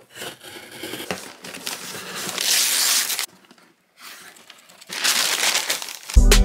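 Paper packaging crinkling and rustling inside a cardboard box as it is unpacked by hand, in two stretches with a short pause about three seconds in. Music starts just before the end.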